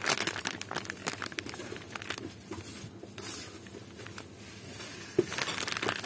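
Soft plastic packaging of a pack of disposable razors crinkling as a gloved hand grips and turns it, a run of small crackles that is densest in the first second and again near the end.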